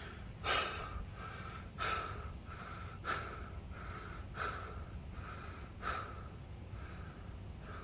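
Breathing, close up: about six slow, even breaths, one every second and a half or so.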